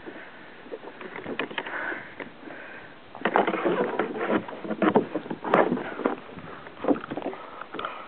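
Rustling and knocking of a handheld camera being moved against a nylon jacket and a plastic bag. It is loudest in a dense, crackling stretch from about three seconds in to near the end.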